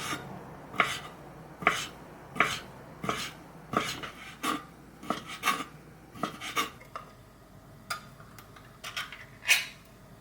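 About a dozen short, sharp scraping strokes, roughly one or two a second, irregular and spacing out toward the end, with the loudest stroke near the end: something being scraped or rasped by hand.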